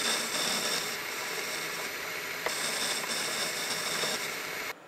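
Metal lathe running with its tool cutting, turning down the diameter of a small bar for an exhaust valve guide: a steady noise with a thin high whine, which cuts off suddenly near the end.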